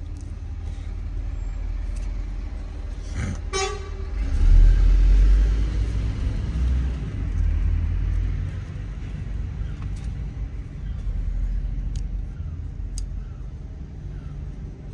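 Road traffic with a steady low engine rumble that swells loudest about four to six seconds in. A vehicle horn toots briefly about three and a half seconds in, and a few faint clicks come later.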